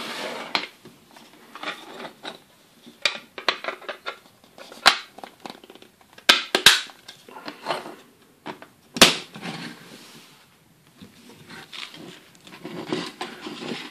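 Hard plastic Playmobil building parts being handled and fitted together: a series of sharp clicks and knocks with scraping and rustling in between, the loudest snap about nine seconds in.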